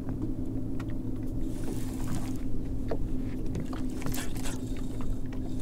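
Bass boat's bow-mounted electric trolling motor running with a steady low hum, with a low rumble beneath it and a few faint ticks.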